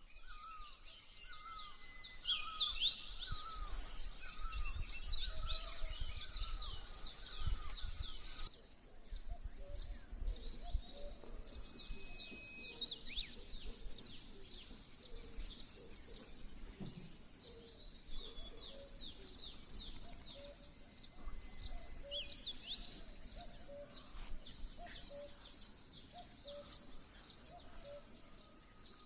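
A chorus of many small birds chirping and twittering, with high rapid calls overlapping densest in the first eight seconds and a repeated lower call beneath them.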